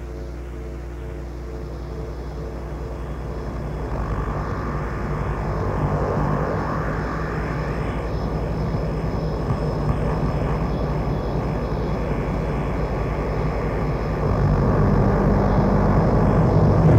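Industrial noise music: a dense, steady droning noise with a heavy low hum and faint high tones, swelling louder about four seconds in and again near the end, with a faint rising whine partway through.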